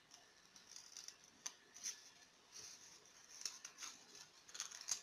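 Faint, scattered crinkles and light clicks of folded origami paper being handled and pressed together by hand.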